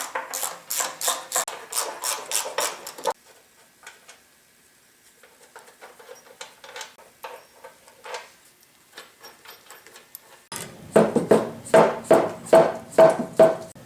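Hammer blows on the back cross brace of a Yates American B244 planer, knocking it loose: rapid strikes about four a second, a stretch of lighter scattered taps, then loud ringing blows again from about ten and a half seconds in.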